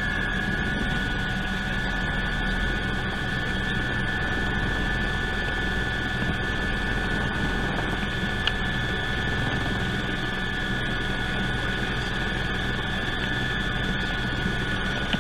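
Cabin noise of a Eurocopter EC120 Colibri helicopter in cruising flight: its turboshaft engine and rotors make a steady drone with a constant high whine.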